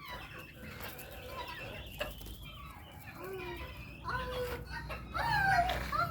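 Chickens clucking and calling, several birds overlapping, growing louder about four seconds in.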